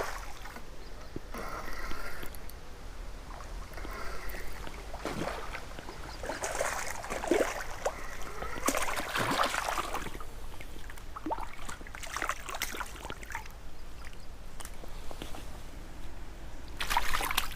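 Water sloshing and splashing in irregular bursts as a hooked wiper (hybrid striped bass) is fought to the bank, over a steady background of running river water.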